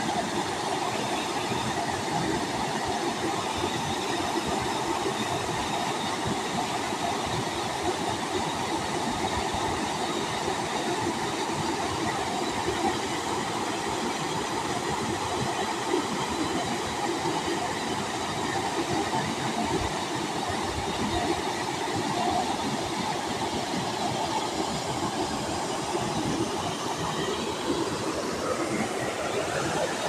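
Waterfall: water pouring and splashing in a steady, unbroken rush.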